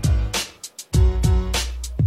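Music with a beat: deep bass drum hits that drop in pitch, sharp snare strikes and sustained chords, with a short gap in the middle.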